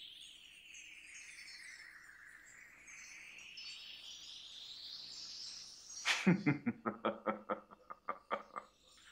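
Anime sound effects of an icy attack. A shimmering hiss sweeps down in pitch and back up again. About six seconds in, a sudden loud blast is followed by a rapid pulsing tone, about six pulses a second, that fades out after a couple of seconds.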